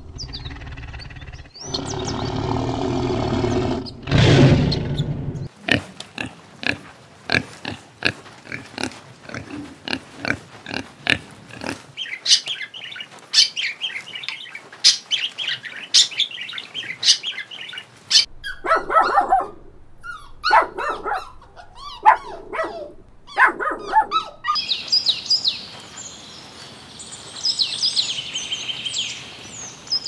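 A string of animal sounds. For the first five seconds a tiger gives a low, rough growl; after that come budgerigars, chirping and chattering in quick, sharp, high notes, with some lower calls in between.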